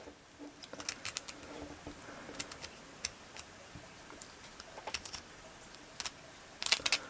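Pliers bending out the crimped edge of a metal bottle cap, working around the rim: faint, irregular clicks and ticks of metal, with a quick cluster of them near the end.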